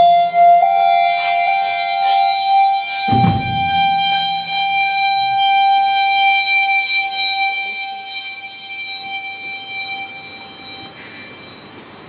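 A live rock band ending a song: one high note with many overtones is held and slowly fades out, with a single heavy low hit about three seconds in.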